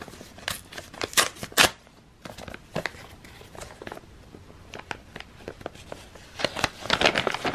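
Paper envelope being torn open and handled: a quick run of sharp paper rips and crinkles in the first two seconds, scattered rustling after that, and a denser burst of crinkling near the end.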